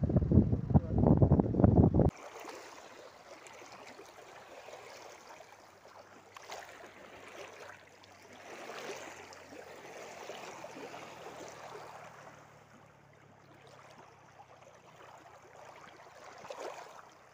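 Wind buffeting the microphone for about two seconds, cutting off suddenly. Then shallow reservoir water lapping softly over stones, with small swells.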